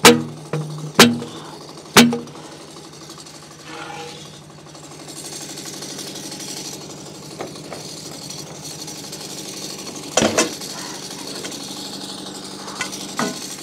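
Portable bandsaw mill's engine running steadily at idle, with three sharp ringing metal knocks a second apart at the start, then a few more clanks about ten seconds in and near the end as the log is set on the mill bed.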